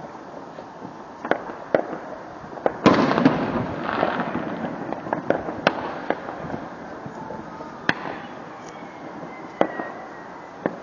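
Fireworks going off: scattered sharp bangs, the loudest about three seconds in, followed by a dense noisy tail that fades over about two seconds. A faint high whistle glides slightly down near the end.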